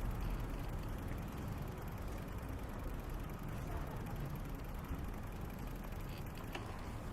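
Steady low rumble of city street ambience, with a single faint click about six and a half seconds in.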